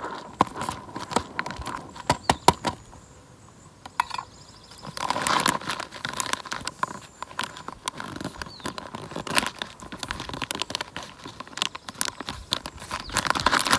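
Foil freeze-dried meal pouch crinkling and tearing as it is opened and handled, in irregular crackling bursts that are loudest about five seconds in and again near the end.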